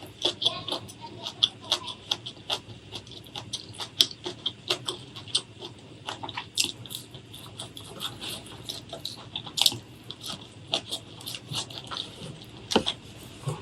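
Close-miked chewing and crunching of food: a dense, irregular run of crisp crackles and wet mouth clicks, several a second.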